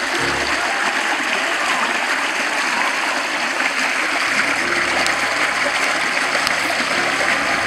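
Steady splashing and churning of water from a dense crowd of fish thrashing at a pond's surface.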